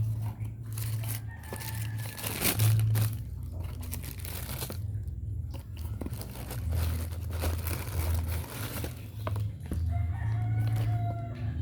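Irregular rustling and crinkling of a shoebox and its paper wrapping being handled, over a steady low hum. A rooster crows in the background, with short pitched calls.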